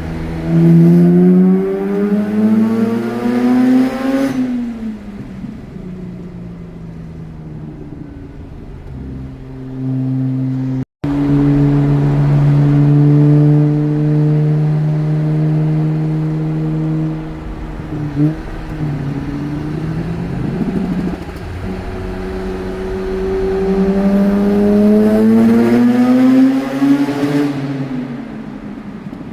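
Mazda RX-8's twin-rotor rotary engine pulling under acceleration: its note rises for about four seconds, drops away, holds a steady lower pitch for several seconds, then climbs again and falls off near the end.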